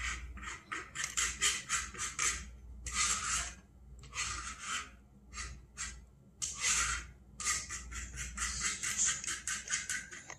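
Metal spoon scraping and clicking as peanut butter is scooped from a jar and dolloped onto batter in a baking pan: runs of quick scratchy clicks with a few longer scrapes in between.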